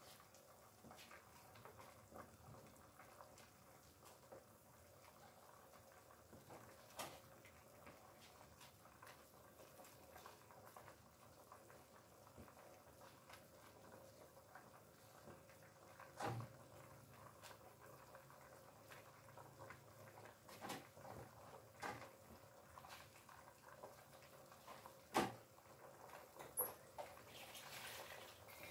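Near silence: a faint steady background broken by a few soft knocks and clicks from leafy greens being laid into a pot, the sharpest near the end.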